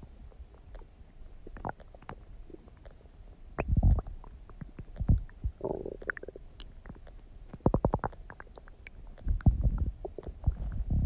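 Human stomach gurgling and rumbling: irregular bursts of low rumbling broken by quick popping gurgles, louder about four seconds in, around eight seconds, and again near the end.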